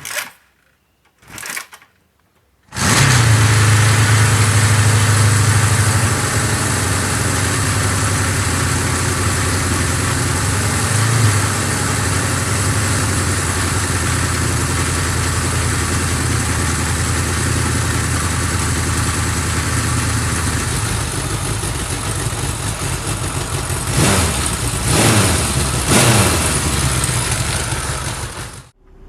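Motorcycle engine idling steadily, coming in suddenly a few seconds in after a few short sharp sounds. It is revved briefly a couple of times near the end, then stops abruptly.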